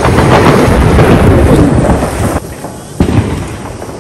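Fireworks going off: a loud, dense run of bangs and crackles that drops away about two and a half seconds in, then one sharp bang about three seconds in.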